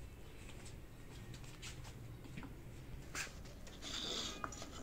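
Faint handling sounds: scattered light clicks and taps, and a brief rustle of fresh mint sprigs about four seconds in as they are set down in a clay bowl, over a steady low background rumble.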